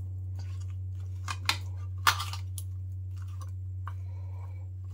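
Metal spoon stirring oil-coated raw mango slices, onion and green chillies in a stainless-steel bowl: a few scattered light clicks and scrapes of spoon on steel, over a steady low hum.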